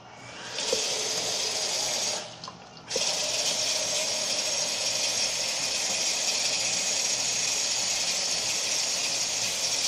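Water hissing through a Kohler Wellworth toilet's fill valve as the tank refills. The hiss pauses briefly about two seconds in, then runs steadily. The owner calls the fill really slow.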